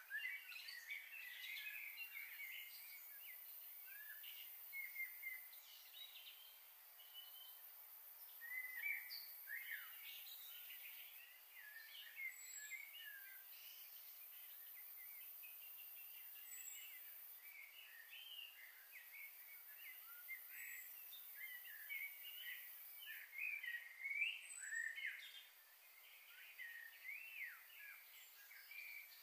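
Faint chorus of small birds chirping and twittering, many short calls and quick sweeping notes overlapping throughout.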